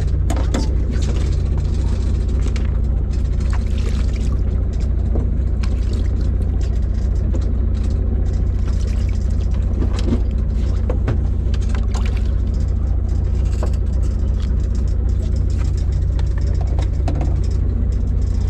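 Fishing boat's engine running steadily with a low, constant drone, with scattered light knocks and clicks over it.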